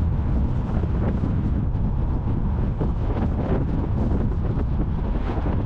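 Wind blowing over the microphone: a loud, steady noise, strongest in the low range and rising and falling unevenly.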